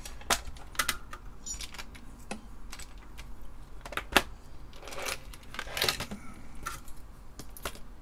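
Irregular light metallic clicks and clinks of small DB9 connectors being picked up and handled, the sharpest about four seconds in, with brief rustles near five and six seconds.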